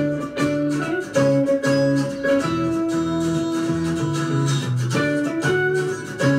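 Background music led by a plucked guitar playing a melody of held and changing notes.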